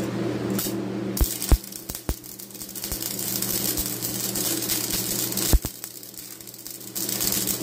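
Stick (arc) welding with 7018 rods on the steel bar of a disc harrow: the arc strikes about a second in and crackles and sizzles steadily, with a few sharp pops, over the welder's steady low hum.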